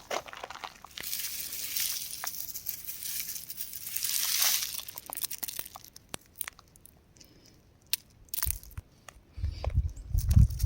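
Rock crumbling and crunching, with swells of crackle and gritty hiss, then scattered small clicks, and low thuds in the last second or so.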